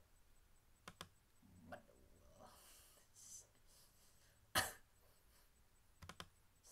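Computer mouse clicks in a quiet room: a pair about a second in and another pair near the end, with a soft breathy noise in between and one louder, sharp sound about four and a half seconds in.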